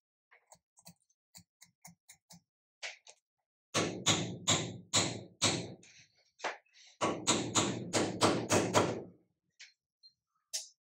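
Hammer blows on a driver tube, seating a slip ring onto a Bosch alternator rotor shaft. About ten light taps come first, then two runs of five or six heavy blows, roughly two or three a second.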